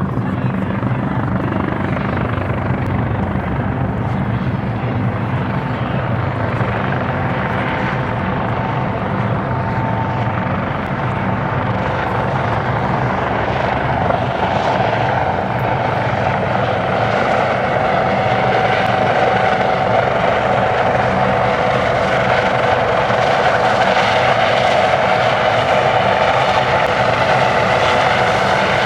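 Airbus AS365N3 Dauphin helicopter flying, its rotor beating steadily with a high whine that grows louder through the second half as it comes closer.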